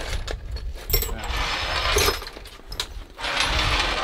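Power drill boring through the steel harmonic balancer of an excavator's diesel engine, clamped in a vise, in two stretches of drilling about a second long each.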